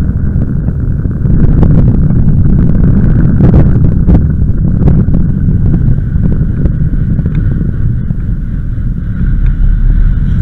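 Wind rushing over the microphone of a bicycle-mounted camera during a ride, with a steady low rumble and scattered clicks and rattles from the bike over the road.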